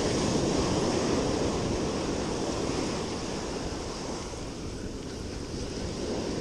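Ocean surf breaking and washing up the beach, with wind rumbling on the microphone. The wash eases a little past the middle and builds again near the end.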